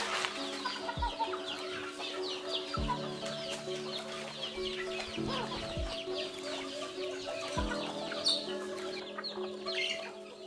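A flock of chickens and roosters clucking, with many short quick calls throughout, over soft background music of held notes.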